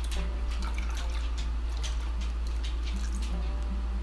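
Lye solution pouring in a thin stream from a glass measuring cup into a bowl of oils, trickling and splashing as cold-process soap batter is started, over a steady low hum.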